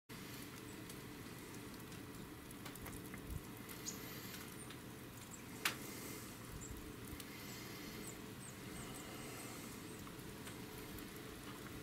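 Quiet outdoor ambience: a steady low rumble and hiss, with a few faint high chirps and one sharp click about six seconds in.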